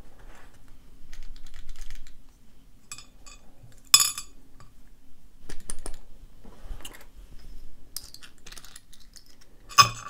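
Small metal clicks and clinks of a round-body padlock being taken apart by hand, its parts knocking against a metal tray. The sharpest clink comes about four seconds in, with a cluster of clicks near the end.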